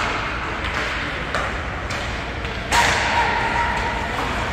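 Basketball game sounds in a gym: the ball thudding on the floor several times, with a louder sharp knock about three seconds in.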